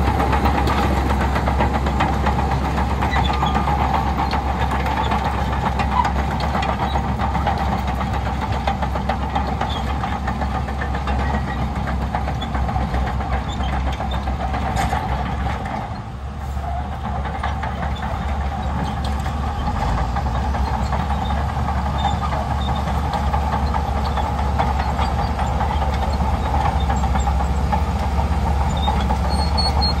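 Shantui crawler bulldozer's diesel engine running under load, with the steady clatter of its steel tracks as it pushes sand. There is a brief drop in level about halfway through.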